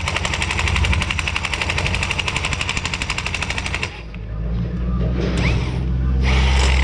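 Impact wrench hammering in a fast, even rattle on the top nut of a coilover shock, stopping abruptly about four seconds in. A low steady hum and a short hiss follow near the end.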